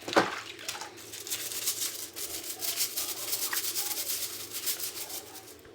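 A brush scrubbing the dishwasher filter in quick back-and-forth strokes, after a sharp knock at the start.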